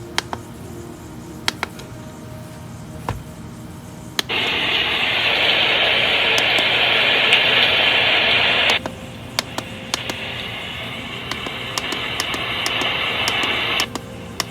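The SHARP SPC585 alarm clock's small speaker playing its built-in sleep sounds. After a few sharp clicks, a loud steady hiss switches on suddenly about four seconds in and cuts off near nine seconds. A softer hiss follows, swelling slowly before it stops shortly before the end.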